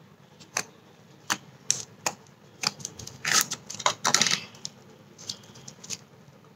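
Irregular sharp clicks and crackling pops, denser in the middle, from yellow bubble slime being pulled from its plastic tub and stretched by hand as its air bubbles burst.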